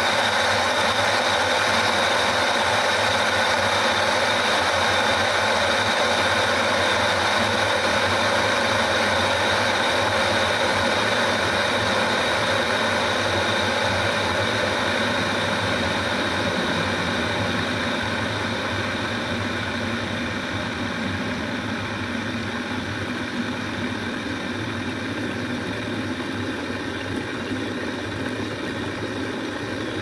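Stainless steel stovetop kettle heating on the hob, the water inside giving a steady rumbling hiss as it works toward the boil. The sound grows slowly quieter over the second half.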